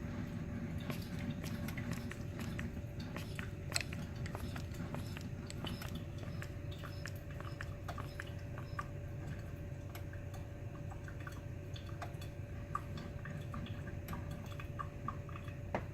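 Brew Express built-in coffee maker brewing a half-and-half white vinegar and water descaling mix: a steady low hiss with a faint steady hum and many small scattered crackles and pops.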